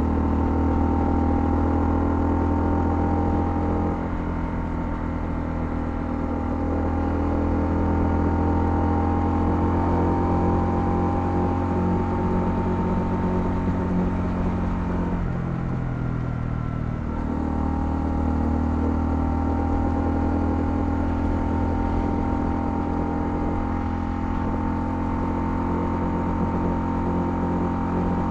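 Honda CL250's single-cylinder engine running steadily while the motorcycle is ridden, its pitch dipping briefly about halfway through before settling back.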